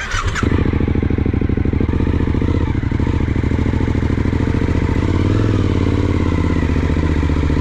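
Suzuki motorcycle engine running steadily with an even, rapid firing pulse as the bike rides slowly along a sandy dirt track. The revs rise a little about five seconds in.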